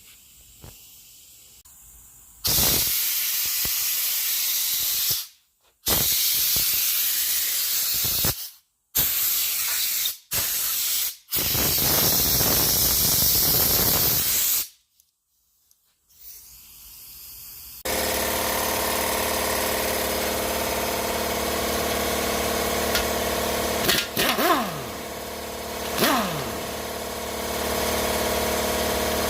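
Compressed air blown through an air nozzle over a bare engine block to clear dust: loud hissing blasts, several in a row with short breaks. A few seconds after the air stops, a motor starts and runs steadily.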